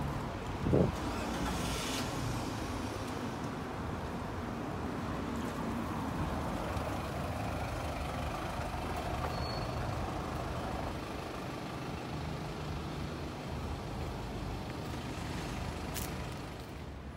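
Street traffic: a vehicle engine running steadily, with a sharp thump about a second in, a brief hiss around two seconds in, and a short high beep near the middle.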